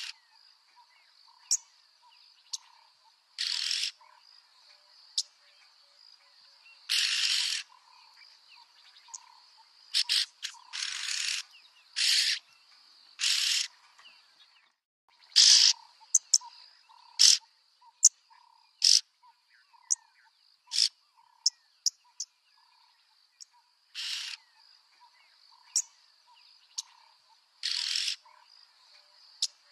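Yellow-billed oxpeckers calling: short, harsh, noisy calls, each half a second or less, given at irregular intervals with brief sharp ticks between them. A steady insect chorus runs behind.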